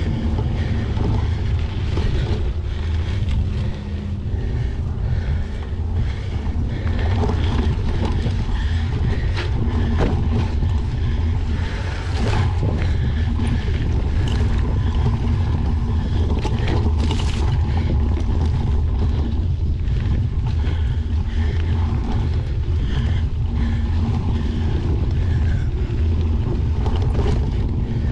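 Bicycle riding fast over a dirt trail: a steady rumble of wind buffeting the handlebar-mounted camera's microphone and tyres rolling on the ground, with scattered knocks and rattles from bumps in the trail.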